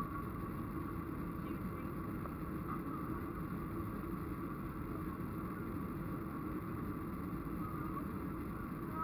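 Steady jet engine and airflow drone heard inside an airliner cabin as the plane climbs after takeoff, with a faint steady whine.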